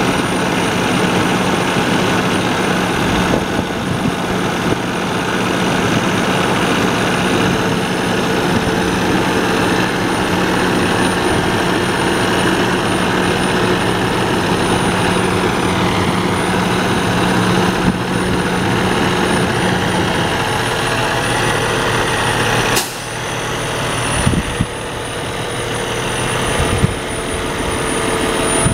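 Cummins ISX diesel engine of a Kenworth T800 idling steadily with the hood tilted open. It dips briefly in level about two-thirds of the way through, with a single sharp click.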